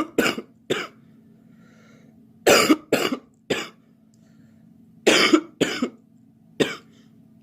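A girl coughing in repeated fits of two or three sharp coughs each, a fit about every two and a half seconds.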